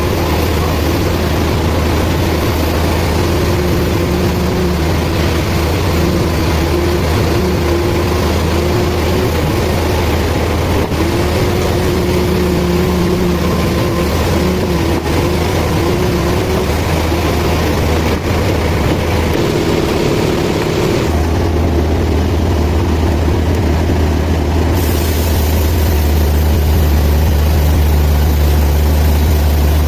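Band sawmill running: a steady, loud machine drone with a strong low hum. The higher hiss drops away for a few seconds about three quarters of the way through, then returns.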